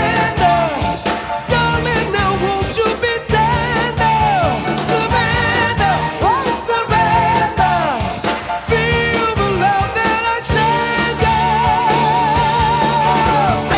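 Rock song with a singer's voice over guitar, bass and drums.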